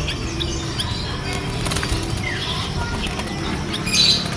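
Caged zebra doves (perkutut) with scattered short bird chirps over a steady low background din, then a brief loud flurry of wing flapping near the end as several doves flutter up inside the wire cage.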